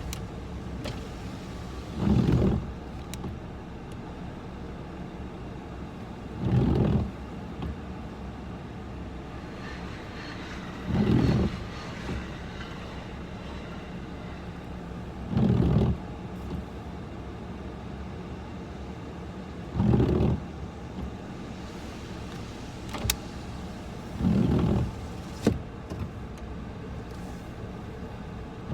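Car engine idling, heard from inside the cabin of a Nissan Moco. A short mechanical whir comes in over it about every four and a half seconds.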